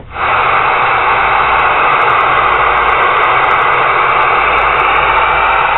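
Steady, loud hiss of CB radio static from the Galaxy 959's speaker between transmissions, starting abruptly as the previous transmission ends.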